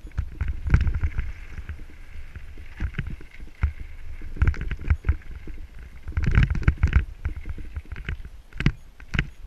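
Mountain bike riding down a gravel and rock trail: tyres crunching over loose stones and the bike clattering and knocking over rough ground, with a dense run of knocks about six to seven seconds in and another sharp one near the end.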